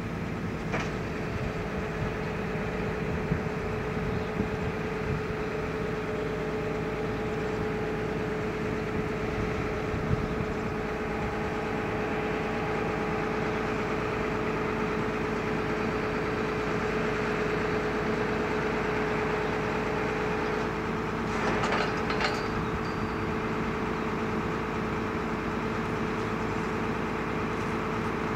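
New Holland 8870 tractor's diesel engine running steadily, a constant tone in its drone, while the Kinze planter's toolbar wings fold out. A short metallic clatter comes about 21 seconds in, with a few lighter knocks earlier.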